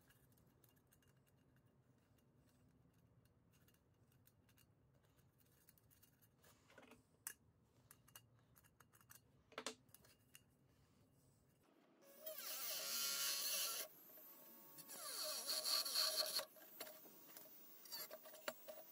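A few light metal clicks as a sheet-metal filter housing is handled, then about twelve seconds in a Dremel rotary tool starts grinding against the metal housing. The grinding is loud and high-pitched, comes in a few bursts, and its whine slides up and down as the bit is loaded.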